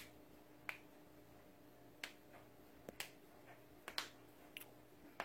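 Finger knuckles cracking: a string of sharp, irregular pops, about eight of them.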